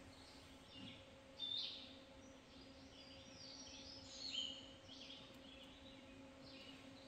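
Woodland songbirds singing: a string of short, high chirped phrases, loudest about one and a half seconds in and again about four seconds in, over a faint steady hum.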